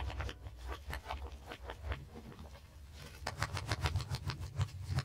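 Footsteps and soft shuffling on a hard floor, with light taps and scrapes as a large board is handled, over a low steady hum.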